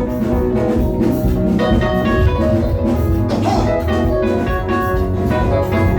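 Upbeat Nigerian praise music from a band, with keyboard chords, bass and a steady drum beat, played between sung lines.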